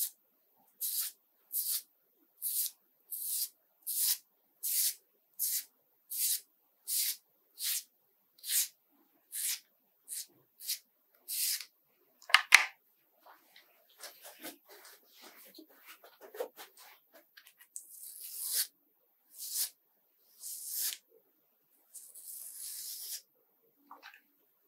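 A razor scraping over a lathered scalp in short, regular strokes, about one every three quarters of a second. A sharp click comes about halfway, then slower, irregular scraping and handling sounds.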